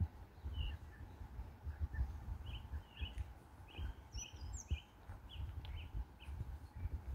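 Small birds chirping outdoors, a steady string of short, quick chirps with a couple of higher notes near the middle, over an irregular low rumble like wind on the microphone.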